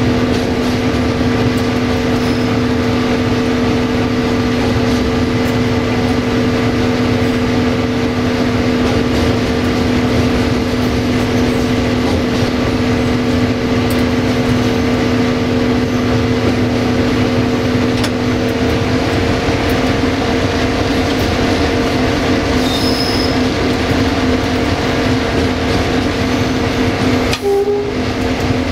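Sulzer diesel engine of an LDE2100 (060-DA) diesel-electric locomotive under way, heard from inside the cab: a loud, steady drone with a constant hum, over the rumble of the wheels on the track. The sound briefly dips near the end.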